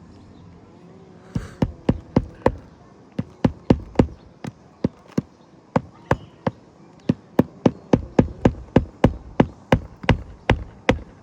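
Hand hammer driving nails to refasten a roofing shingle: a long series of sharp strikes starting about a second and a half in, first in uneven groups, then a quick steady run of about three a second near the end.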